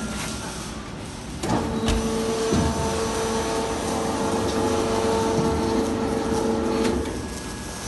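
Stationary feed mixer's electric drive and three horizontal augers start up about a second and a half in and run with a steady hum. They shut off near the end.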